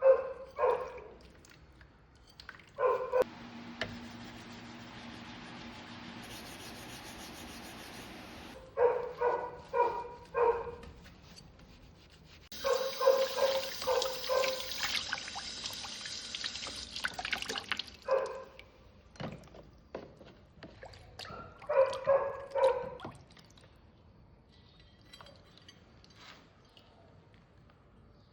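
A dog barking in short volleys of one to four barks, over two stretches of steady hiss.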